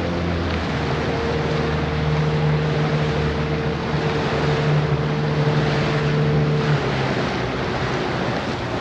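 Boat engine running steadily under wind on the microphone and the rush of water, the engine note dropping away about seven seconds in.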